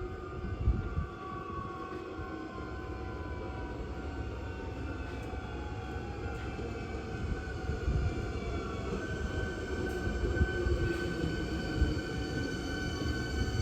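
Hankyu electric train running at the station: a steady rumble with a motor whine that falls slowly in pitch, and a few low knocks from the wheels.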